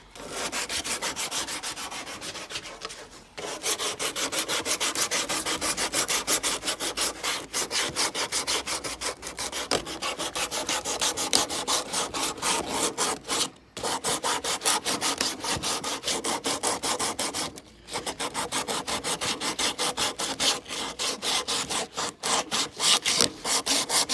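Abrasive sanding on a rough-cut wooden wheel, worked in rapid back-and-forth strokes to shape it, with short pauses three times.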